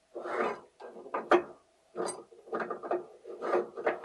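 Metal scraping and clicking as the cover with its perforated die plate is worked by hand onto the barrel of a small fish feed pelleting machine. The sounds come as irregular scrapes with a few sharp clicks.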